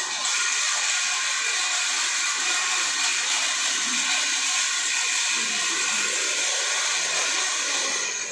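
Workshop machinery running: a steady rushing hiss with a few faint steady tones in it, easing slightly right at the end.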